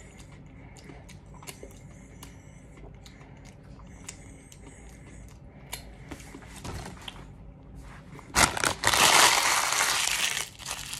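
Faint scattered clicks, then about eight seconds in a loud crumpling, crinkling rustle of paper close to the microphone that lasts about two seconds.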